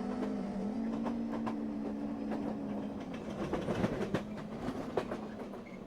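Outro of a gentle song soundtrack: low sustained notes shifting a few times, with scattered clicks, slowly fading out.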